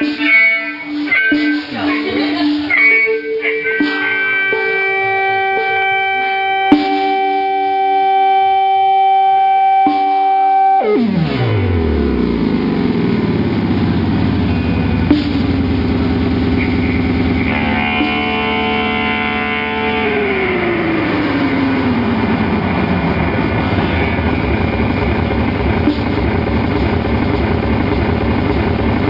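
Electric guitar played through effects pedals: held, ringing single notes for about ten seconds, then a sudden falling sweep into a dense, distorted noise drone that carries on, with a slow downward glide in pitch about two-thirds of the way through.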